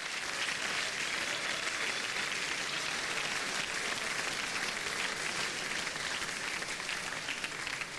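Studio audience applauding steadily, a dense patter of many hands clapping that eases off a little near the end.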